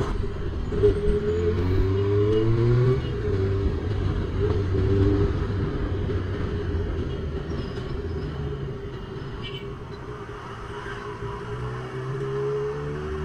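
Honda CB400 Super Four's inline-four engine under way, revving up over the first few seconds, holding, easing off around eight to ten seconds in, then revving up again near the end.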